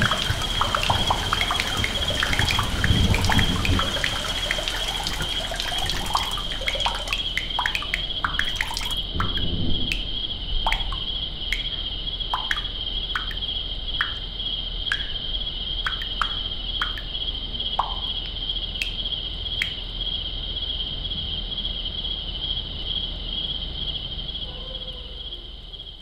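Sound-effects soundscape of water dripping in a leaky house over a steady cricket chorus. Dense dripping and trickling thins out about a third of the way in to single drips roughly a second apart, and everything fades out near the end.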